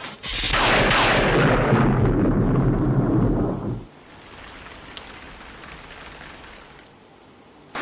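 A thunderclap: a sharp crack settling into a low rumble that cuts off suddenly about halfway through, followed by steady, quieter rain.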